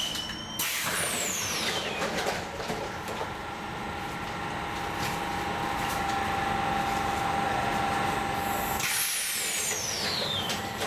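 Tram in motion: a steady motor whine, with two bursts of hiss, one about half a second in and one near the end, each carrying a high tone that slides down.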